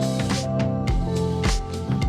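Music: sustained chord notes over a steady drum beat of about two kicks a second.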